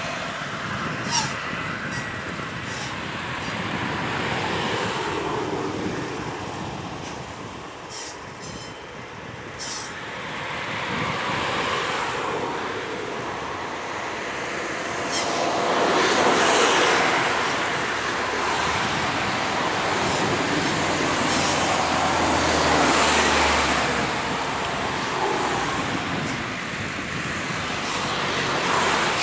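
Class 661 (EMD G16) diesel-electric locomotive running in the distance as it pulls slowly away with a passenger train. A wash of road traffic noise swells and fades over it, loudest around the middle and again near the end. A low engine hum grows stronger about two-thirds of the way through.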